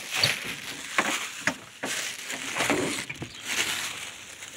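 A person walking while holding a phone: footsteps and sharp knocks, mixed with rustling handling noise close to the microphone.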